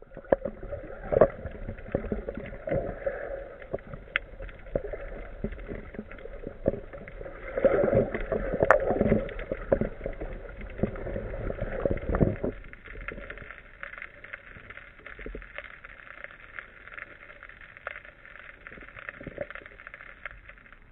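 Muffled underwater sound picked up through a sealed camera housing: water movement with many scattered clicks and knocks, busier and louder for about the first twelve seconds, then a quieter steady hiss.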